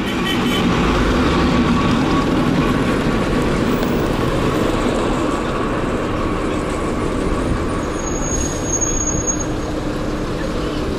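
Steady road noise from a moving car, picked up by a camera mounted low on the car's outside: tyre and wind noise mixed with passing traffic. A thin high whine comes in briefly about eight seconds in.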